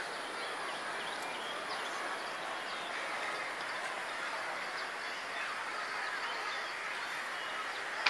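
Steady hum of distant city traffic, with small birds chirping now and then.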